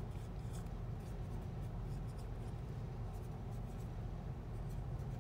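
Dry-erase marker writing on a whiteboard: short, faint scratchy strokes, over a steady low hum.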